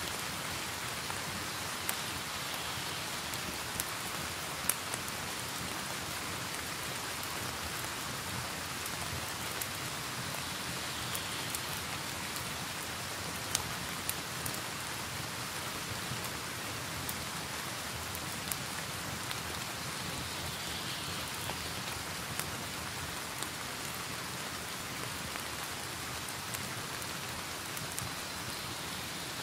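Steady hiss of rain, with scattered sharp pops and clicks of a crackling wood fire, a couple of them louder than the rest.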